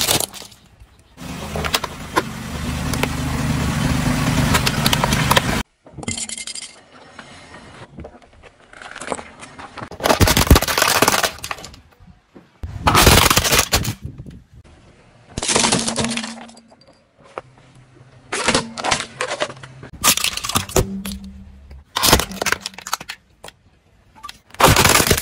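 Plastic toy cars cracking and crunching under a car tyre: a string of separate crushes, each about a second of snapping plastic. The first is drawn out over several seconds.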